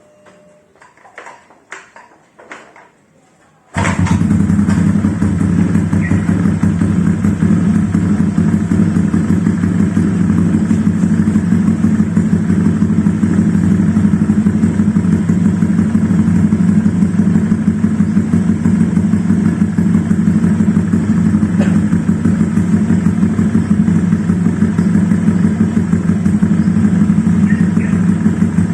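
Honda Vario 125 scooter's single-cylinder four-stroke engine running steadily at idle through an ABF Racing SPR aftermarket racing silencer. It comes in suddenly about four seconds in, after a few faint clicks.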